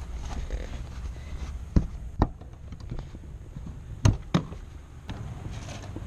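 Four sharp knocks in two pairs, about half a second apart, one pair near the middle and one late, over a low steady rumble.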